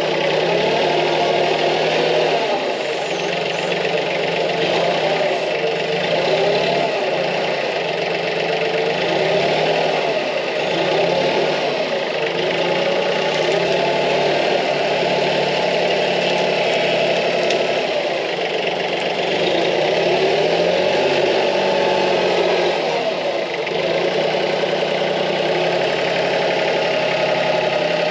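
Branson 2515H compact tractor's three-cylinder diesel engine running under load, its pitch rising and falling again and again as the front loader's tooth bar digs in at the base of a small tree and tips it out of the ground.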